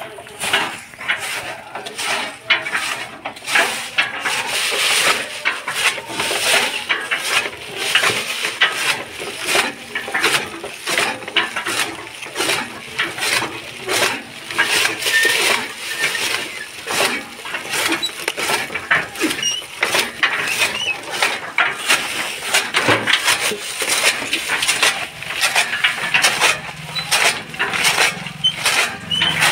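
Hand-turned chaff cutter (kutti machine) chopping green fodder: its flywheel-mounted blades and gears give a fast, uneven run of metallic clacks and crunches.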